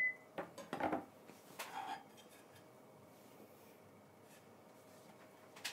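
A chijimi pancake being slid from a frying pan onto a plate: a few soft scrapes and knocks of the spatula and pan in the first two seconds, then near-quiet kitchen room tone.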